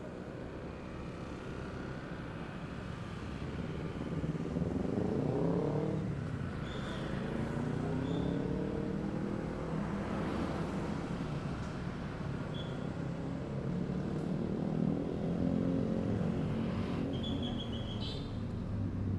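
City street traffic: cars and motorbikes passing with a steady engine rumble. One engine rises in pitch as it accelerates about four to six seconds in. A few short high-pitched beeps come later.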